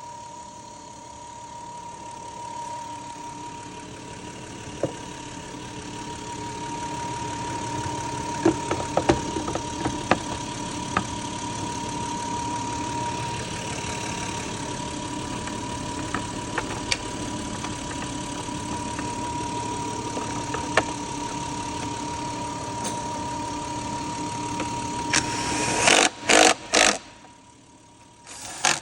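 2002 Lexus engine idling steadily, running smoothly on a newly fitted accessory-belt tensioner pulley, with scattered metallic clicks and taps from hand tools. Near the end a few loud knocks come, and the running noise falls away.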